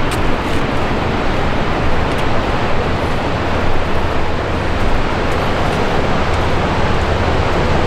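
Steady rush of wind buffeting the microphone, mixed with surf breaking on sea-cliff rocks.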